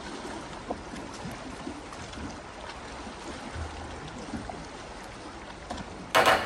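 Steady wash of water lapping against a concrete harbour quay, with one short, loud burst of noise about six seconds in.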